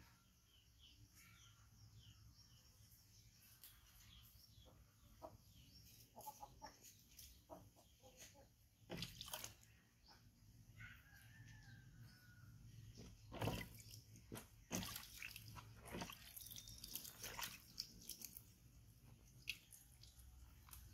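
Mostly quiet, with faint drips and small splashes of water as hands wet and wash a baby monkey, and a few sharper splashes in the middle.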